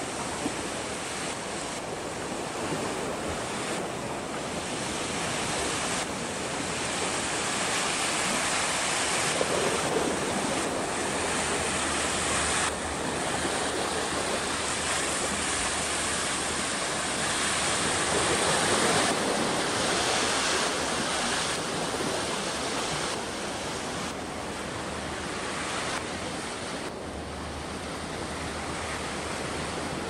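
Lake Michigan surf washing in, a steady rush that swells and eases every few seconds, with wind rumbling on the microphone at times.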